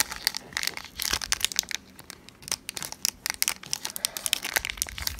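Foil wrapper of a Pokémon trading-card booster pack crinkling as it is handled and pulled at to tear it open, in irregular runs of crackles.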